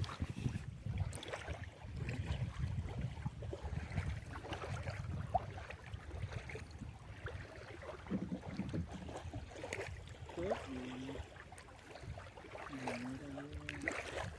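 Wind buffeting the microphone over open water, a fluctuating low rumble with the sea washing underneath. Faint wavering voices come through briefly in the last few seconds.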